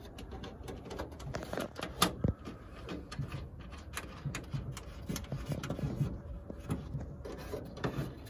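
Scattered small clicks and light knocks of hands and metal fittings as a taillight housing is worked onto the inner panel of a car's trunk lid, with a sharper click about two seconds in.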